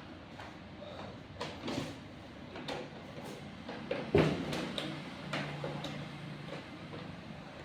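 A string of irregular clicks and knocks from things being handled, with one sharp, louder knock about four seconds in.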